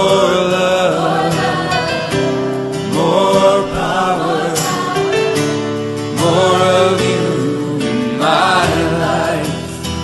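Background music: a worship-style song with sung vocals over sustained instrumental backing, a new vocal phrase starting about every two to three seconds.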